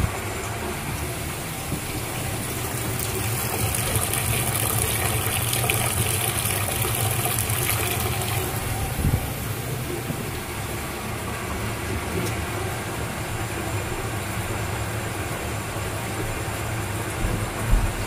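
Gas burner of a Burnham steam boiler running with a steady low rumble, while water gushes out of the open boiler drain, with a hiss that grows louder for a few seconds a few seconds in. The boiler is being drained down to test that the low-water cutoff shuts the burner off.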